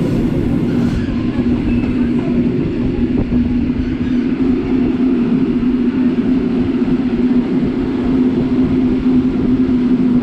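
Polregio regional passenger train running along the line, heard from inside the carriage: a steady, loud rumble with a constant low hum.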